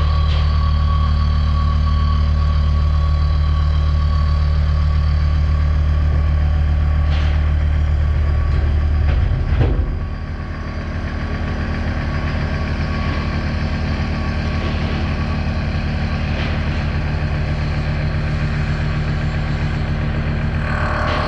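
Mazak horizontal machining center running on a job in AR400 abrasion-resistant steel: a steady machine hum with several held tones. A little under halfway in, the deep hum drops away and the sound settles slightly quieter.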